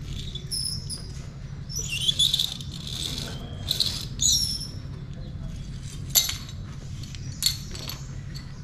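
A rope is hauled through a two-pulley rescue hauling system, with a run of high squeaky chirps. Later come two sharp metallic clicks about a second apart from the rope-grab and carabiner hardware.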